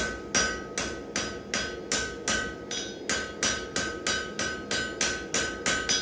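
Blacksmith's hand hammer striking hot steel on the anvil in a steady rhythm of about two and a half blows a second, each blow ringing out metallically, as the forged Mjolnir pendant is flattened.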